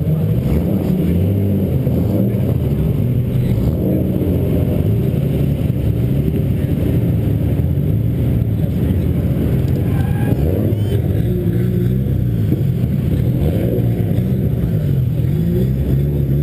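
RB20 inline-six engine of a Nissan S14 drift car, heard close up from the car's side. It revs up and down again and again under changing throttle through a drift run.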